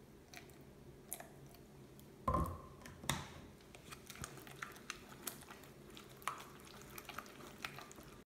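Silicone spatula stirring a wet kimchi chili paste in a glass bowl: soft squishing with small scattered clicks, and a louder knock with a brief ring a little over two seconds in, followed by another sharp knock about a second later.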